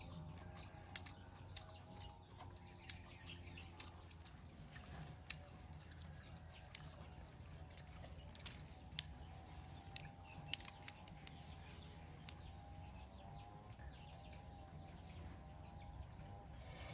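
Faint bird chirps with scattered light clicks and taps, over a faint wavering hum.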